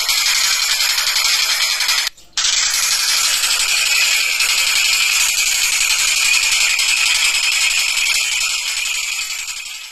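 Tengkek Buto kingfisher calls in a continuous, high, rapid rattle. The rattle breaks off briefly about two seconds in and fades near the end.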